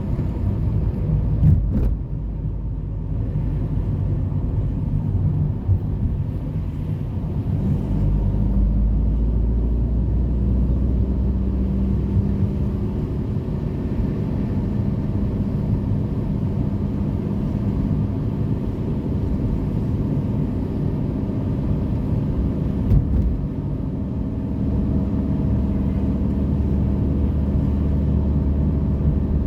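Steady low rumble of city road traffic, with a few faint clicks.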